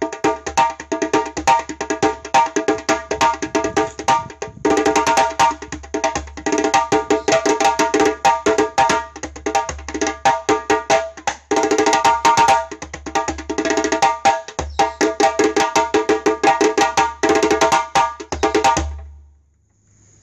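Rope-tuned djembe played by hand solo: fast, dense slaps and tones, with brief breaks about four and eleven seconds in, stopping about a second and a half before the end.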